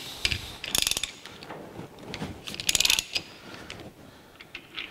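Four-jaw lathe chuck being worked by hand to release a bronze part: two short runs of rapid metallic clicking, about a second in and around three seconds in, with lighter clicks between.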